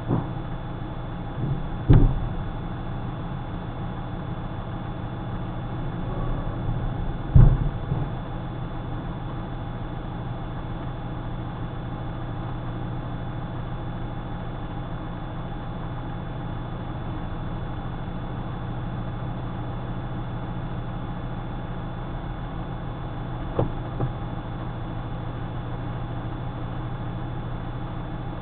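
Vehicle engine idling steadily, heard from inside the cab, with a few dull thumps about two and seven seconds in and a smaller one near the end.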